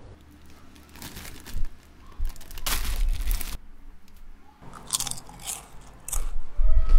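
Ridged potato chips crunching in several irregular bursts.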